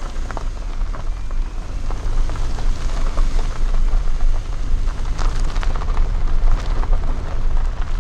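Car tyres rolling over a rough, bumpy road, heard close to the wheel: a deep, continuous rumble with dense crackling and popping from the road surface.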